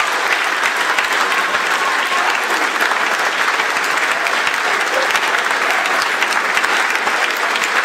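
A large room full of people applauding steadily, celebrating confirmation that the spacecraft's engine burn succeeded.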